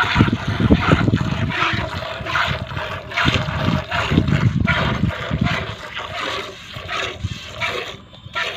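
Hand-milking a cow into a steel bucket: jets of milk squirt into the milk already in the pail in a steady rhythm of about two to three squirts a second, over an uneven low rumble. The squirting breaks off briefly near the end.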